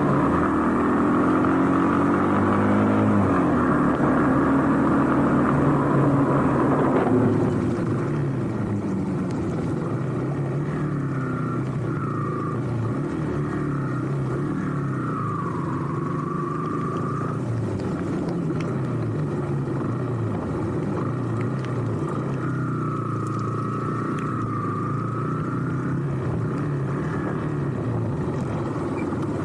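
Small motorcycle's engine running under way, its pitch rising and falling with the throttle. Louder for about the first seven seconds, then easing to a lower, steadier run, with a wavering higher whine coming and going several times.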